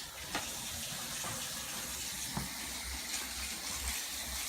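Bathroom sink tap running, water splashing steadily into the basin, with a few small knocks.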